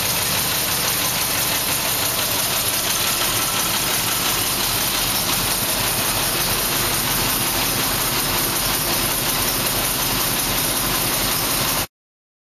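Jaguar XK150 twin-cam straight-six engine idling steadily, with a little tappet noise that is not enough to need a valve adjustment. The sound cuts off abruptly near the end.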